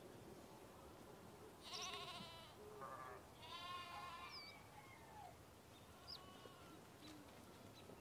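Lambs bleating: three quavering bleats in quick succession about two to four seconds in, over a quiet background.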